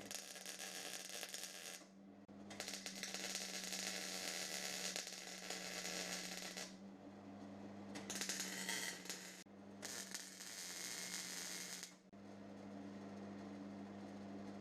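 MIG welder laying short beads: four crackling, hissing bursts of a few seconds each, with brief pauses between them, over a steady electrical hum.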